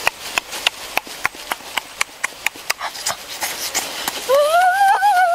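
A quick run of sharp clicks, about four or five a second, then from about four seconds in a boy's long, high wordless vocal 'ooh' that rises and then falls.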